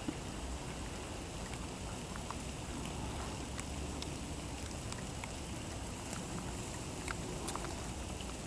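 Snowstorm ambience: a steady low rumble of wind on the microphone, with faint scattered ticks of wet snow falling.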